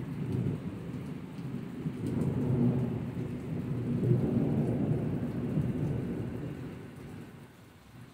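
Thunder rolling after a nearby lightning flash: a low rumble that swells over the first few seconds and dies away near the end. Steady rain falls underneath.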